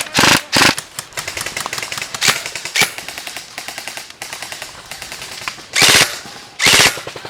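Airsoft guns firing on full auto: a rapid stream of sharp clicking shots, with short, louder bursts near the start and twice near the end.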